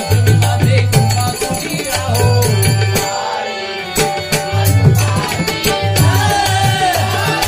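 Marathi bhajan music: dholki and tabla playing a fast hand-drum rhythm under a singer's voice. The deep drum strokes drop out briefly about three seconds in, then pick up again.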